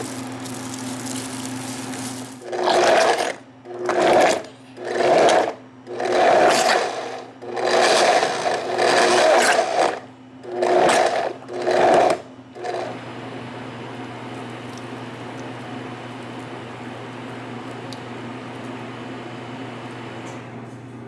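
Blendtec commercial blender pulsing mango chunks into purée: about eight short bursts of the motor, each under a second or so, over roughly ten seconds, then it stops. A steady low hum runs underneath.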